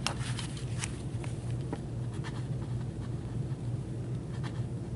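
Hands handling things on a desk: scattered rustles and small clicks, busiest in the first couple of seconds, over a steady low electrical hum.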